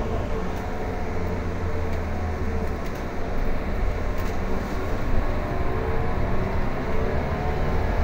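Inside a Mercedes-Benz OC500LE city bus on the move: a steady deep engine and road rumble, with a drivetrain whine that drifts up and down in pitch as the bus changes speed, and a few faint rattles.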